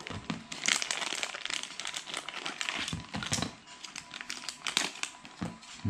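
Small clear plastic bag crinkling as it is handled and pulled open by hand, in irregular crackles and rustles that are loudest about a second in.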